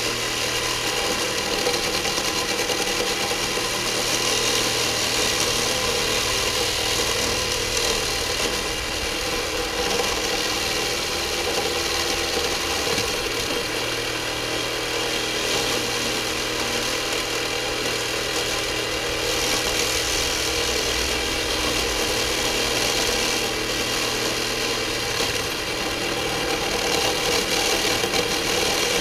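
Reciprocating saw (sawzall) running steadily, its blade cutting through the end of a roll of galvanized 1/8-inch hardware cloth.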